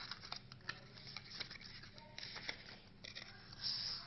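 The Arduino Uno's small retail box being opened by hand: scattered light clicks and rustles of the packaging and the paper inside, with a louder rustle near the end.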